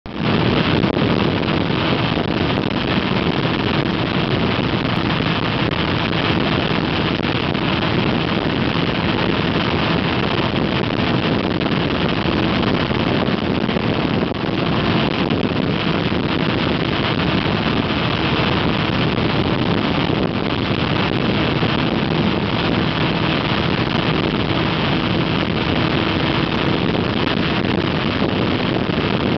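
Motorcycle engine running steadily at highway cruising speed, mixed with wind rushing over the microphone and tyre noise.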